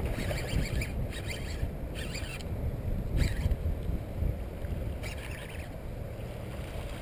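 Wind buffeting the microphone, with several short bursts of a Shimano Calais DC baitcasting reel being cranked as a lure is worked back in.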